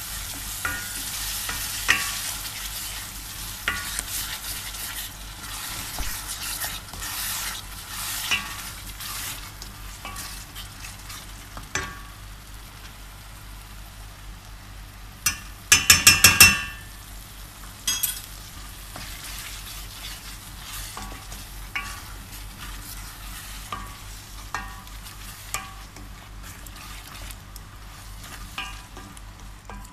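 A red onion base sizzling in oil in a stainless steel pot while a wooden spoon scrapes and stirs it. About halfway through, a metal spoon is knocked against the pot five or six times in quick succession, ringing, to shake off a red paste.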